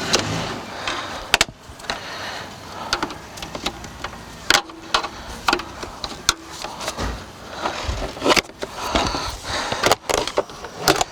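Plastic interior trim being pried and pulled off a car, with repeated sharp clicks and knocks and scratchy handling noise in between.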